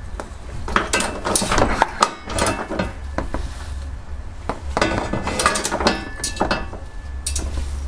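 Click-type torque wrench being worked on a trailer-hitch nut: bursts of sharp metallic ratchet clicks as the handle is swung back and pulled again, with the nut still short of its 70 ft-lb setting. A steady low hum runs underneath.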